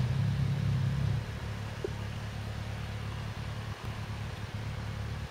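Wind buffeting the microphone outdoors, a low gusty rumble that eases about a second in and continues more softly.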